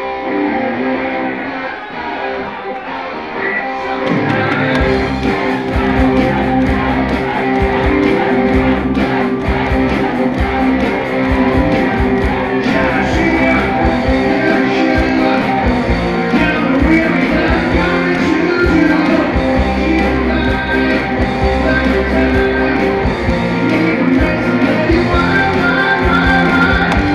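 Live rock band with electric guitars: a guitar plays alone at first, then about four seconds in the bass and drums come in and the full band plays on steadily.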